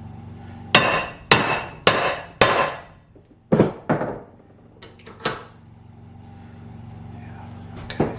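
Sledgehammer blows on battery cable ends, crimping the lugs onto heavy welding cable. There are four sharp strikes about half a second apart, then three more, more widely spaced.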